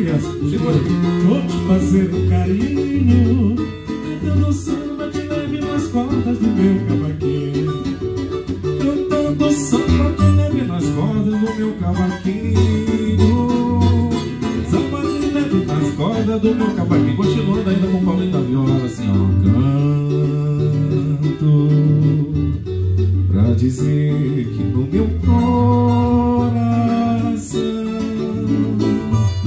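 Acoustic guitar and cavaquinho playing samba together, with a man singing into a microphone over them.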